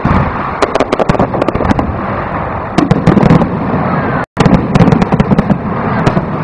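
Aerial firework shells bursting overhead in quick succession: a dense run of sharp bangs over a steady rumble, with the sound dropping out for an instant about four seconds in.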